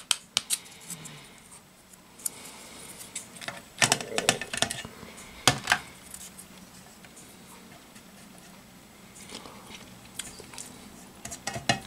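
Scattered light clicks and scrapes of a plastic spoon spreading vegetable paste on a cracker and knocking against an aluminium foil tin, in small clusters with quiet stretches between.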